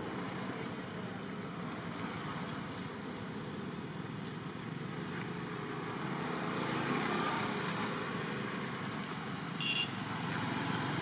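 Steady road traffic from passing cars and motorbikes, swelling a little around the middle as a vehicle goes by, with one brief high chirp near the end.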